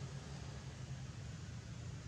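Steady background noise: a low, fluttering rumble under an even hiss, with no distinct sound standing out.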